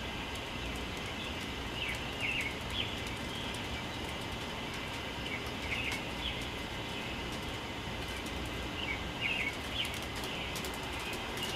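A songbird calling in short, high chirping phrases every two or three seconds over a steady low background rumble.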